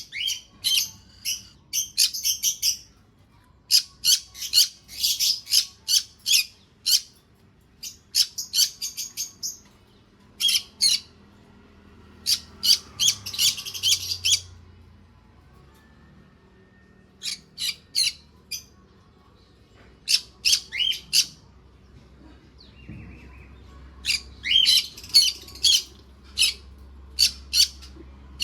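Small pet parrots chirping: runs of short, shrill, high calls in quick clusters, broken by brief pauses of a second or two.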